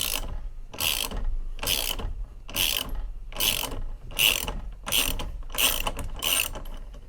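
Ratchet wrench clicking in steady back-and-forth strokes, a little more than one stroke a second, as the loosened 22 mm centre nut is run off a BMW E28's steering shaft.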